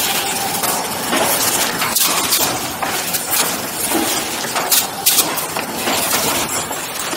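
Automatic box-forming machine running: a steady mechanical clatter broken by several sharp clacks as the wooden forming block presses the sheet down and the folding arms close around it.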